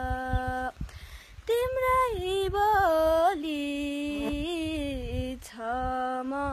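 A girl's solo voice singing a Nepali folk song in the Gaine (Gandharva) style, unaccompanied, with long held notes and ornamented bends in pitch. She breaks off for a breath about a second in, then sings on.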